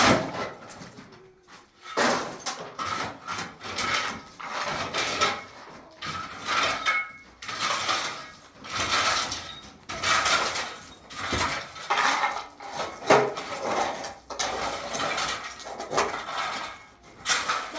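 Irregular clattering, knocking and scraping of objects being handled, in uneven swells about a second apart.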